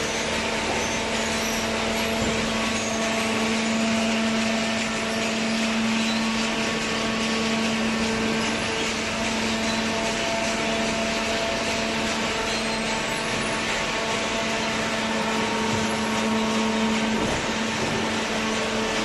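Hydraulic power unit of a single-cylinder vertical scrap baler running: electric motor and pump giving a steady hum with a constant tone over a noisy rush.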